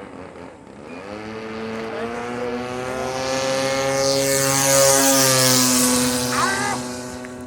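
Radio-controlled model plane's DLE 20 single-cylinder two-stroke gasoline engine and propeller running steadily in flight, growing louder as it comes close, loudest around five seconds in, then fading as it flies away.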